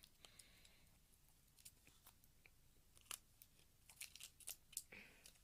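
Faint crackling and scattered light clicks of sticky tape and a hairbrush being handled as the brush is taped onto a hand, with a short cluster of clicks near the end.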